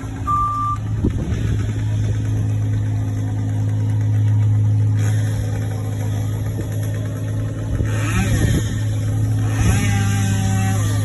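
Engine of heavy tree-service machinery running steadily, with a reversing alarm beeping briefly at the start.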